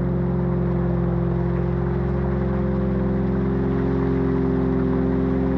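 Ambient modular-synth drone: several low tones held steady, with one shifting about two seconds in, over the steady hiss of heavy rain from a field recording.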